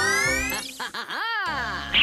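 Cartoon sound effect over children's background music: a rising slide-whistle-like glide, then a few quick swoops of pitch up and down, before the music carries on alone.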